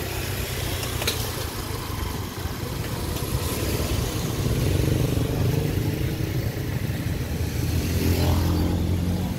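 Motorcycle and scooter engines running in street traffic, passing close by, loudest in the middle and again near the end.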